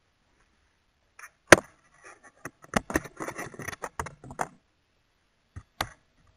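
Close crackling and clicking on the onboard camera's microphone. A sharp click comes about a second and a half in, then a patch of dense crackle, then two more clicks near the end. There is no motor sound.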